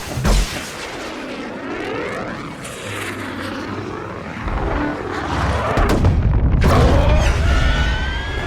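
Movie-style battle sound effects of fighter jets attacking. It opens with two sharp bangs, then jets or missiles streak past with sweeping rises and falls in pitch. A heavy low rumble builds from about halfway and stays loud.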